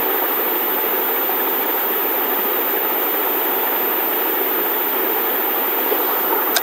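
Steady background noise, an even rushing hiss with no distinct events.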